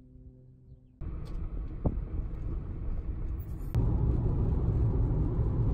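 Road and engine rumble inside a moving car's cabin at highway speed, a steady low-heavy noise that cuts in suddenly about a second in and steps up louder after a sharp click just before the four-second mark.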